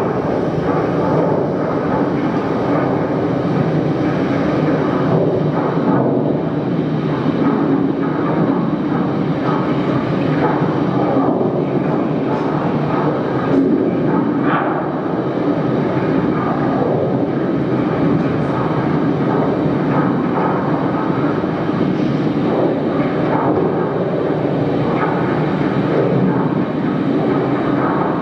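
Steady, dense roaring noise from the soundtrack of a volcano-themed video art installation, played over speakers in the projection room, with a few faint crackles through the middle.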